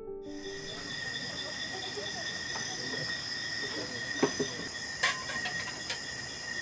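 Night chorus of crickets, a steady high trilling, with a few light knocks in the second half.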